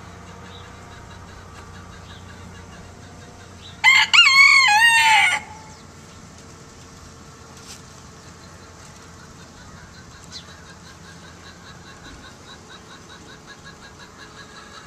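Golden Sebright bantam rooster crowing once, about four seconds in: a short first note, then a wavering crow of about a second and a half.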